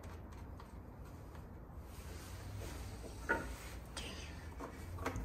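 Faint clicks and one sharp knock about three seconds in, from mower parts being handled and fitted back together, with more clicks near the end, over a low steady hum.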